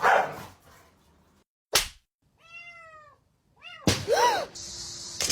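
A cat meowing several times: a drawn-out meow, a couple of short quick ones, then a loud meow. Before the meows come a short noisy burst and a sharp knock.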